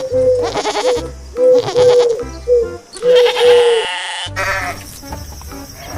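Background music, with a goat bleating about three seconds in.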